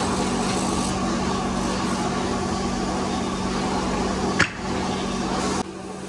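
A motor-driven woodworking machine running steadily with a constant hum while wood is worked. There is a sharp knock about four and a half seconds in, and the sound drops away suddenly near the end.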